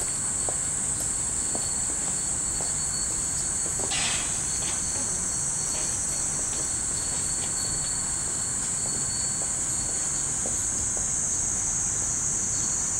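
Cicadas droning in a steady high-pitched hiss, with faint scattered clinks from rows of hanging metal furin wind chimes.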